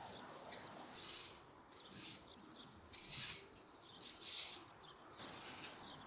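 Faint birds chirping over a quiet outdoor hiss, with short scratching strokes about once a second from a rake dragged across the lawn.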